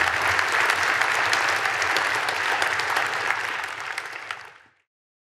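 Audience applauding, fading out about four and a half seconds in.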